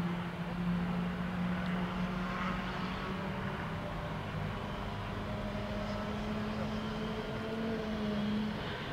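Airbus A350-1000's Rolls-Royce Trent XWB-97 turbofans at takeoff thrust as the jet rotates, lifts off and climbs away: a steady jet engine rumble with a low hum that creeps slightly up in pitch.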